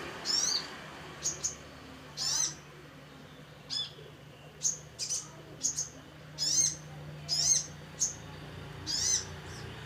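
Little spiderhunter (sogok ontong) calling busily: short, sharp high chirps with quick sweeping trills, repeated over a dozen times at irregular intervals.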